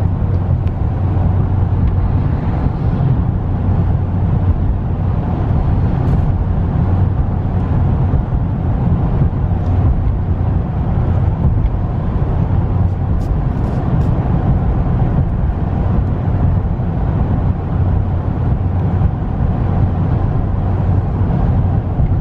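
Steady engine and road noise inside the cab of a 2015 Dodge Ram 1500 with the 5.7-litre Hemi V8, driving along at road speed.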